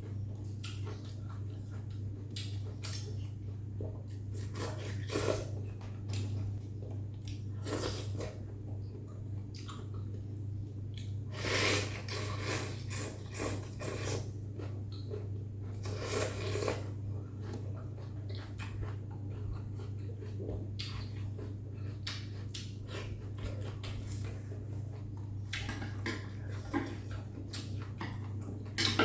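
A person eating noodle soup close to the microphone: chewing, with scattered clinks of utensils against the bowl and a few louder eating noises about 5, 8, 12 and 16 seconds in, over a steady low hum.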